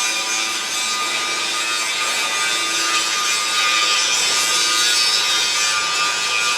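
Continuous workshop machinery noise in a railway coach works: a steady hissing, rasping power-tool sound with a faint steady whine.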